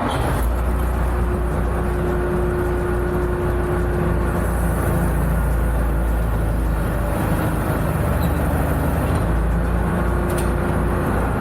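Tractor engine started and running steadily at a low rumble, with a steady higher whine during the first few seconds.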